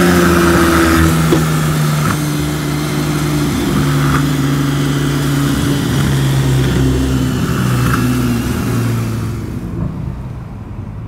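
Sports car engine running at steady low revs in slow traffic, its drone stepping up and down in pitch a few times. It grows quieter and duller near the end.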